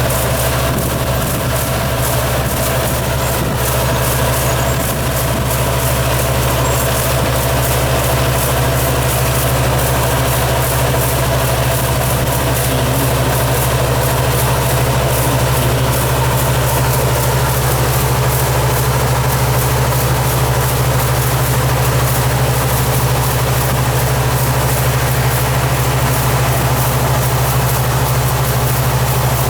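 Yanmar farm machine's engine running steadily, with a constant low hum and a mechanical clatter over it.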